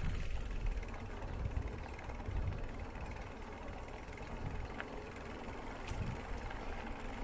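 Riding a Specialized bicycle: a low, uneven rumble of wind and tyres, with a few faint mechanical clicks and creaks from the bike.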